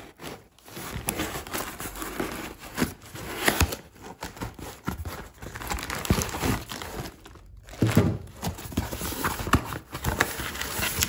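Corrugated cardboard shipping box being torn and pulled open by hand, with crinkling of the plastic wrap around the package inside: irregular rustles, rips and sharp knocks, pausing briefly about seven seconds in.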